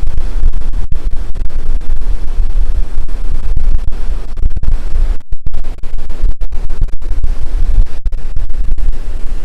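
Strong wind buffeting the microphone: a loud, gusting low rumble that briefly drops out about five seconds in.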